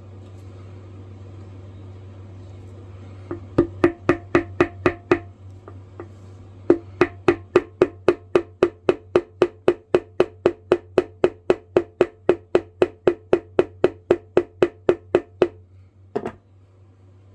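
Small rubber mallet tapping an epoxied screw eyelet into a drilled hole in the top of a miniature axe pendant. A short run of quick light taps comes first, then a pause, then a long even run of about four taps a second, and one last tap near the end.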